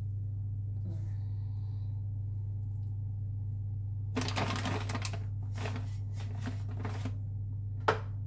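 Steady low hum, with plastic packaging rustling and crinkling as it is handled about four seconds in, a few shorter rustles after, and a sharp click near the end.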